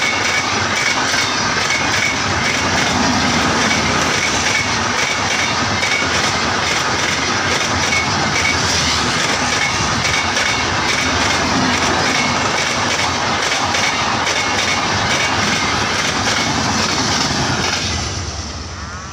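LHB passenger coaches of an express train passing close at high speed: a loud, steady rush of wheels on rail that falls away near the end as the last coach goes by.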